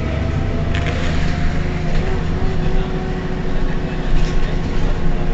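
Heuliez GX 127 city bus running at a steady pace: a low engine rumble with a steady hum and a faint whine that rises slightly in pitch, and a light click about a second in.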